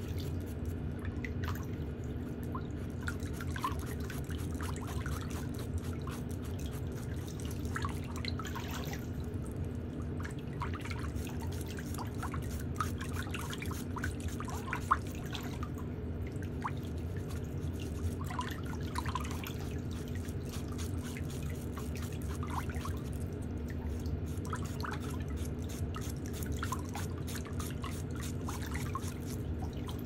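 A nail file drawn across toenails in short, irregular strokes, giving faint light scratches and ticks over a steady low hum.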